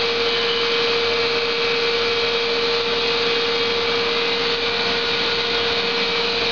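Steady machine noise: an even whirring hiss with a constant mid-pitched hum that does not change.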